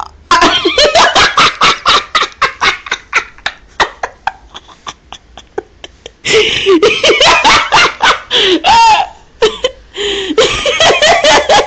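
A woman laughing hard in repeated bursts that trail off, then break out again louder about six seconds in. Her voice is hoarse from a cold.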